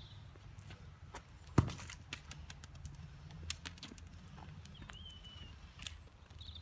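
A football kicked on brick paving, with one sharp loud kick about one and a half seconds in and lighter taps of ball and trainers on the paving throughout. A bird chirps briefly about five seconds in.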